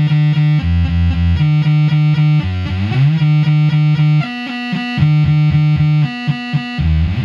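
Eurorack modular synthesizer playing a sequenced, buzzy pitched line through an attenuverting mixer, its notes stepping between pitches with a couple of rising glides. From about halfway through, the notes turn choppy, rapidly gated on and off.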